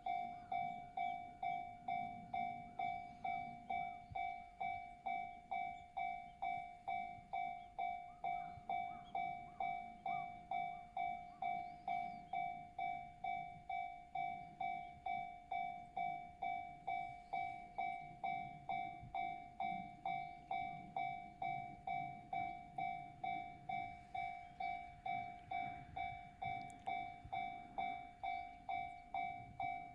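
Japanese railway level-crossing warning bell ringing steadily, the same electronic ding repeated at an even pace, with a train's low rumble beneath it.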